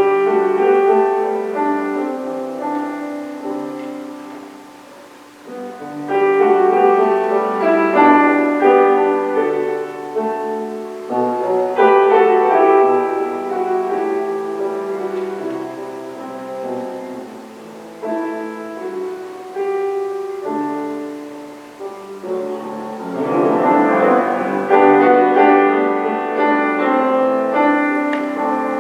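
Piano playing slow, sustained chordal music in phrases, with new phrases beginning about 6, 12 and 23 seconds in.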